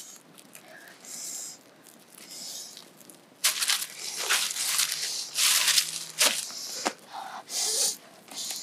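Rustling and crinkling of green corn husks as ears of corn are handled and laid onto a wood fire, in a string of loud rustling bursts starting about three and a half seconds in.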